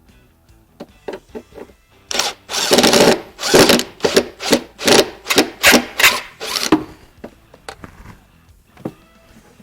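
A run of loud scraping, rubbing strokes, about two a second for around five seconds, as van interior trim is worked loose by hand. Light clicks and knocks come before and after.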